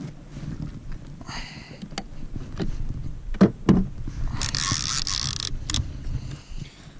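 Low rumble from a sit-on pedal kayak on open water, picked up by a camera mounted on the hull, with a few sharp knocks of gear about three and a half seconds in and a hissing rush that lasts about a second, a little after four seconds.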